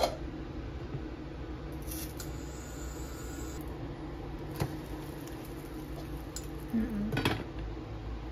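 Stainless steel frying pan and its glass lid: the lid clatters right at the start, a spatula taps the pan once as the pancake is flipped about four and a half seconds in, and the lid clinks back onto the pan about seven seconds in. A steady low hum runs underneath.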